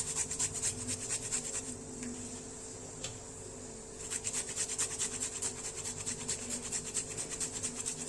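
Fresh ginger being grated on a hand grater: quick rasping strokes, a pause of about two seconds, then more strokes.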